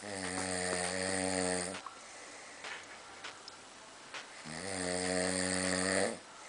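A person snoring: two long snores, each a steady low buzz lasting nearly two seconds, the second starting about four and a half seconds after the first.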